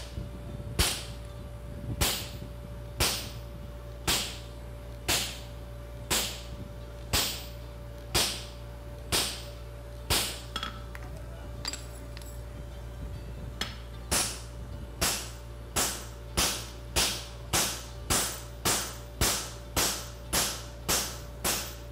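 Hammer striking a handled fuller, steel on steel, to crease a nail groove into a red-hot steel horseshoe on an anvil. Single blows come about once a second, then a pause near the middle with a few light clinks, then quicker blows, about two a second, toward the end.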